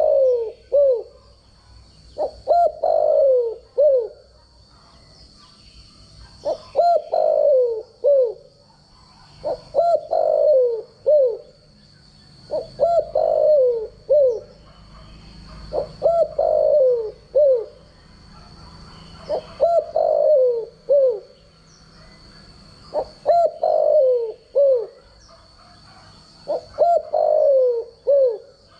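Captive decoy spotted dove cooing its standard call: a phrase of three to four notes, each falling in pitch, repeated about every three and a half seconds, nine times. A faint steady high-pitched whine runs underneath.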